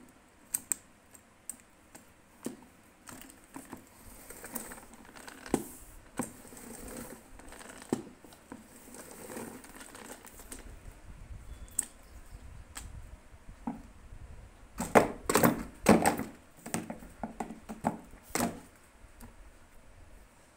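Plastic clicks, knocks and rattles from handling a spin mop: the telescoping handle and the mop head knocking against the plastic bucket and its spin basket. A quick run of louder knocks comes about fifteen seconds in, with one more a couple of seconds later.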